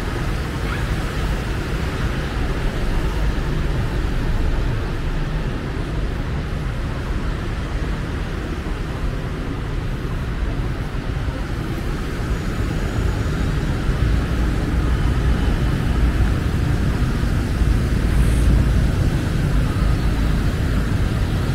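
Steady rumble of street traffic, heaviest in the low end, without clear separate events.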